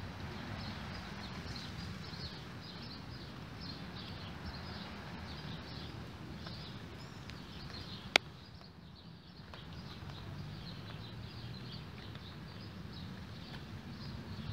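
Outdoor ambience of quick, high chirps repeating several times a second, over a low rumble from a handheld phone. One sharp click stands out about eight seconds in.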